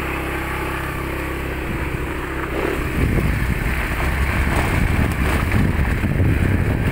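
Small motorcycle engine running steadily at low speed, then about three seconds in the sound turns louder and rougher as the bike rides over the bumpy dirt track, with jolting and rumbling.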